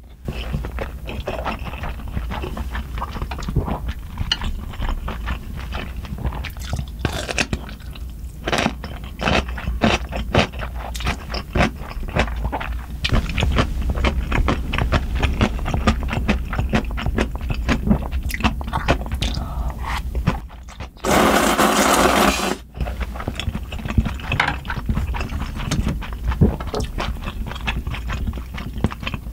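Close-miked eating sounds: wet chewing with rapid mouth clicks while eating spicy soupy instant noodles, and one long loud slurp about two-thirds of the way through.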